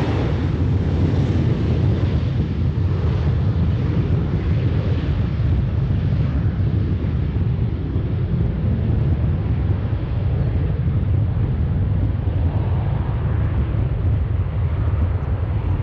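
Boeing 737-800's CFM56-7B jet engines at takeoff thrust, heard as a low, steady rumble with a hiss above it. The higher hiss slowly dies away as the jet climbs out.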